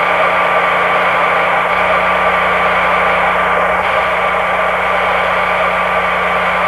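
Steady hiss of a cockpit voice recording from a Boeing 747 flight deck in flight, with a constant low hum and a thin steady tone running through it.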